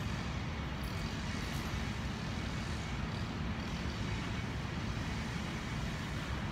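Steady low rumble of outdoor background noise, with no distinct sounds standing out.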